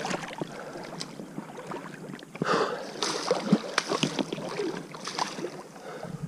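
Shallow river water splashing, with irregular knocks and handling noises and a louder splash about two and a half seconds in, as a small wels catfish just fought in is handled at the water's edge.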